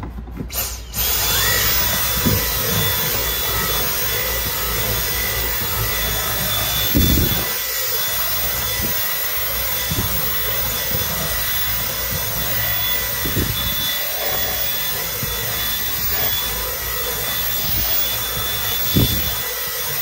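Dyson V10 Animal cordless vacuum running with its rotating brush head worked over car carpet: a steady high whine over rushing air, switched on about a second in. A few dull knocks are heard along the way.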